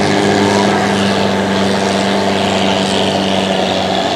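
Thai long-tail boat's engine running steadily as the boat speeds across the bay: a steady, even drone with several fixed tones.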